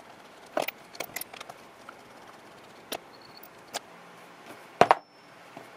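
Scattered light clicks and clinks of small steel parts of a three-jaw scroll lathe chuck being handled as it is taken apart, with a louder double knock near the end as the chuck body is worked on.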